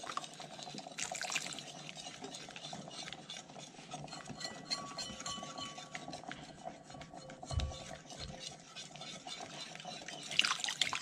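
A thin flour-and-water batter being stirred in a bowl, the utensil making many quick small clicks and scrapes against the bowl, over a steady faint hum.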